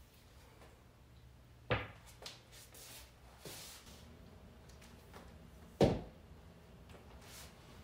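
Two sharp knocks about four seconds apart, the second the louder, with fainter clatter and rustling between them, as a pool cue and balls are handled at a pool table.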